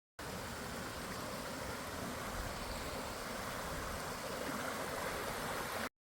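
Creek water rushing steadily, starting and cutting off suddenly.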